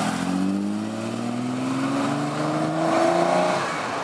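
Ferrari 275 GTB's V12 engine accelerating away, its pitch climbing steadily for about three and a half seconds, then dropping near the end.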